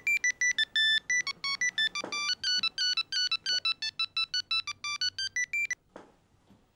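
Mobile phone ringing with an electronic beeping ringtone melody, fast short notes of changing pitch, that cuts off abruptly near the end. A faint knock or two follows.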